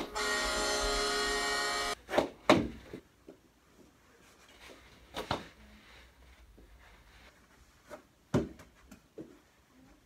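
A recorded hockey goal horn plays over a speaker and cuts off suddenly about two seconds in. Then come scattered sharp knocks from mini hockey stick play: a quick pair, then single knocks several seconds apart.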